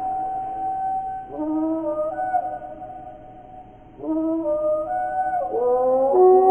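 Reconstructed dinosaur calls made from slowed-down bird recordings: long, deep, pitched calls that step up and down in pitch and overlap one another. They fade briefly in the middle, then start again about four seconds in.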